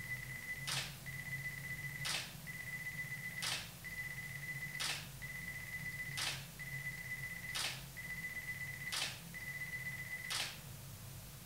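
Nikon DSLR firing a self-timed series of shots: eight shutter clicks about one and a half seconds apart. Under them runs a steady high tone that breaks off briefly at each shot.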